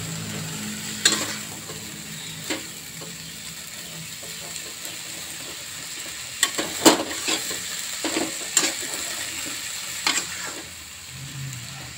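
Long beans sizzling in a wok as they are stir-fried, with a steady frying hiss. A spatula stirs them, knocking and scraping against the wok now and then, most often around the middle.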